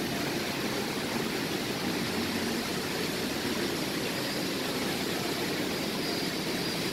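Steady rushing ambient noise with no distinct events.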